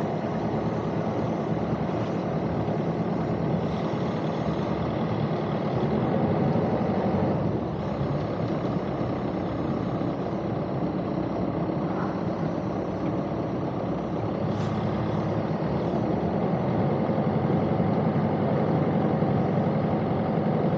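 A sailing yacht's inboard engine running steadily at low throttle in gear while manoeuvring at slow speed, picking up a little in the last few seconds.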